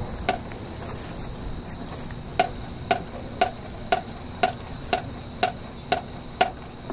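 Sharp percussive clicks at a steady two per second, starting a little over two seconds in and stopping near the end, over a low murmur of background noise.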